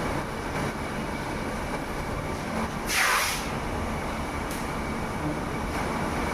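Steady machine noise on a factory floor around an induction-heating machine, with one short sharp hiss about three seconds in.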